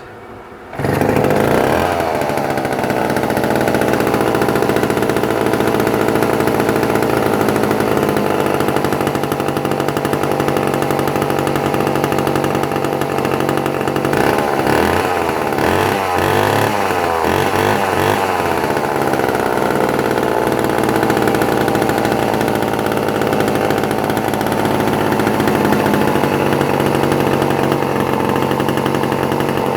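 Homelite C51 77cc two-stroke chainsaw engine starting about a second in and revving up, then running hard at high revs. Its pitch wavers and sags for a few seconds in the middle before steadying again.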